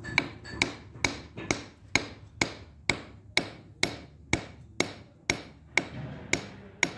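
Steady hammer blows on steel, about two a second, each with a short metallic ring. The blows are driving home the threaded end fitting on a Hyva hydraulic tipper jack cylinder to tighten and seat it.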